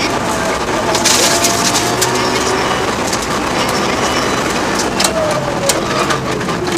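In-car sound of a Mitsubishi Lancer Evo VII rally car's turbocharged four-cylinder running hard, with road and drivetrain noise and scattered sharp clicks and rattles. A short burst of hiss comes about a second in, and the engine note falls about five seconds in as the car slows.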